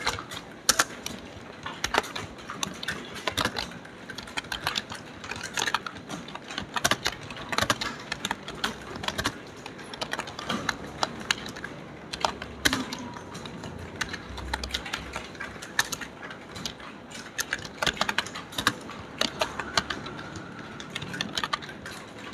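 Fast typing on a computer keyboard: a quick, irregular run of key clicks with no pause.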